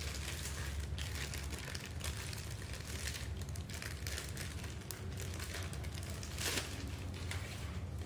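Clear plastic packaging bag crinkling and rustling as it is handled and a silicone remote-control cover is pulled out of it, with irregular crackles and one louder crackle about six and a half seconds in.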